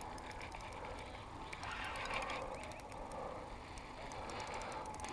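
Spinning reel being wound in while playing a fish on light line, a faint run of rapid ticks over a low steady hiss.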